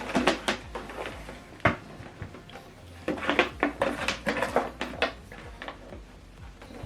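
Hard plastic parts and cables being handled, with scattered clicks and knocks in irregular clusters.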